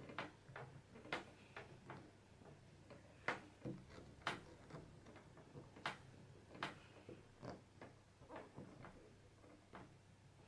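Faint, irregular clicks and taps, about one or two a second, as hands press and rock an acrylic stamping block down onto cardstock, with fingers and rings knocking against the acrylic.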